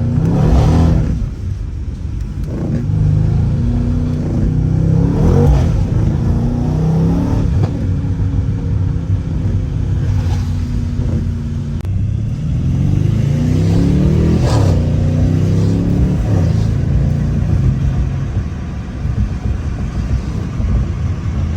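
Stage 2 tuned Mercedes-AMG C63 engine accelerating hard through the gears. Its pitch climbs and then drops sharply at each of several quick upshifts, and it runs more steadily near the end.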